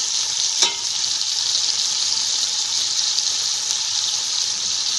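Chicken pieces frying in oil in a pan on medium heat: a steady, high sizzle, with one sharp tap about half a second in.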